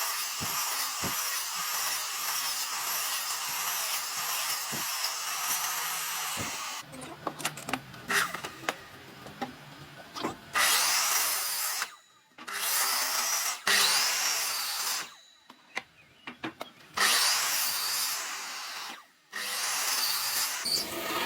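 A power tool working wood, running steadily for about seven seconds, then in a series of passes lasting a second or two each, with short pauses between them.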